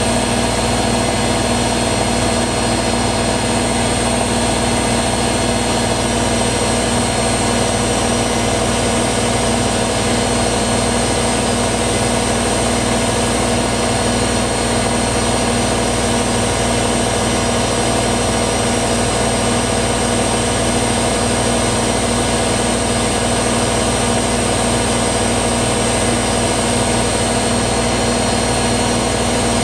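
Hoover WDYNS654D washer dryer on a fast spin: a steady motor hum with a thin high whine, unchanging throughout.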